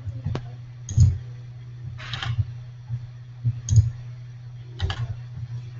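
A handful of separate computer mouse clicks and small knocks, a second or so apart, over a steady low hum.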